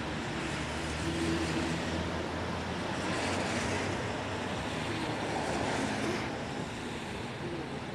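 Traffic on a rain-wet road: a steady hiss of tyres on wet asphalt from passing cars over a low engine hum, swelling about a second in and again from about three to six seconds, then easing.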